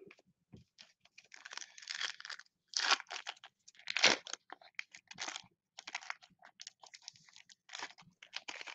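Plastic-foil wrapper of a trading-card pack crinkling and tearing as it is ripped open and the cards slid out, in a string of irregular crackles, loudest about three and four seconds in.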